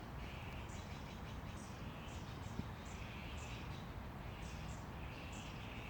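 Birds calling outdoors: short high chirps repeating every half second or so, alternating with longer calls about a second long, over a steady low rumble.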